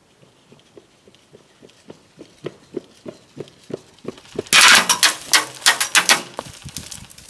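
Airsoft match: steady footfalls, about three a second, grow louder, then about four and a half seconds in airsoft guns fire a rapid, loud volley of snapping shots lasting about two seconds.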